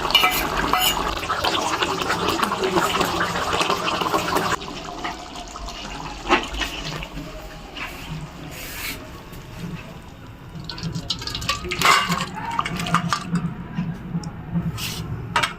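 Water running or pouring for about four and a half seconds, stopping abruptly, then scattered clinks and knocks of utensils in the kitchen.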